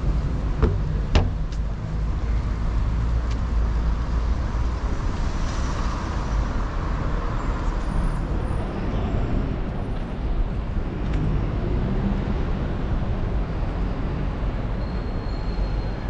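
Street traffic noise: a steady rumble of cars on the road, with one vehicle passing more loudly about five to eight seconds in. Two short clicks sound about a second in.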